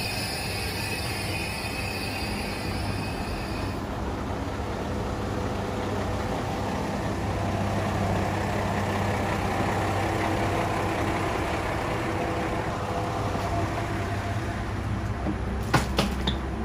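Diesel railcar engine idling at the platform: a steady low hum, with a high whine that stops about four seconds in and a few sharp clicks near the end.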